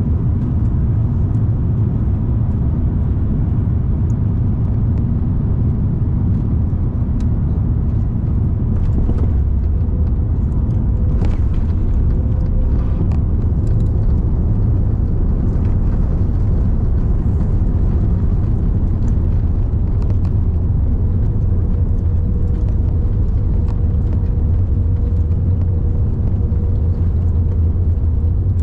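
Cabin noise aboard an Airbus A330neo landing, heard from beside the wing: a loud, steady low rumble from its Rolls-Royce Trent 7000 engines and the airflow. About ten seconds in comes a cluster of knocks and rattles as the wheels touch down, followed by the steady rumble of the wheels rolling out on the runway.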